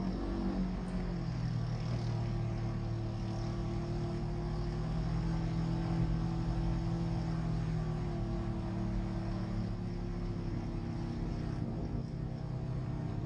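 Polaris RZR 900 side-by-side's engine running as it drives across loose sand. Its pitch drops in the first second as it slows, then holds steady at a moderate speed.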